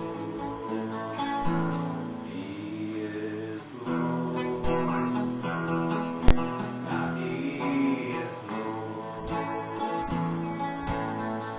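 Acoustic guitar music, strummed, with a single sharp click a little after six seconds in.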